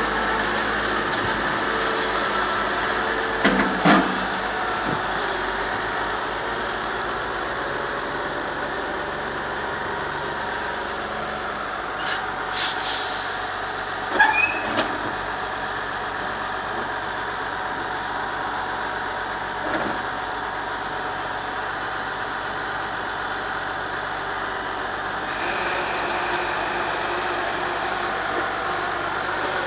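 Case IH Puma 225 CVX tractor's six-cylinder engine running steadily under load while its Strautmann Gigavitesse loader wagon unloads grass silage, with a second tractor working nearby. Short metallic clanks come a few seconds in and again around the middle, and a steadier, higher whine joins in near the end.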